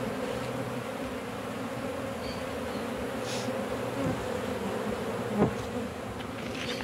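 Steady buzzing hum of a large mass of honeybees swarming over an opened hive box, with one sharp knock about five seconds in.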